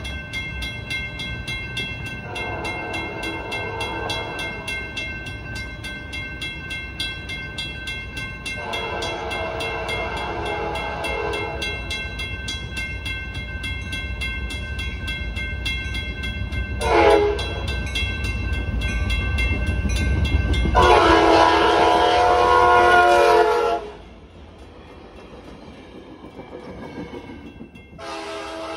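Trinity Railway Express commuter train sounding its horn for a grade crossing: two long blasts, a short one and a long one, then another short blast near the end. Under it, the train's rumble builds as it approaches, and a crossing bell rings steadily.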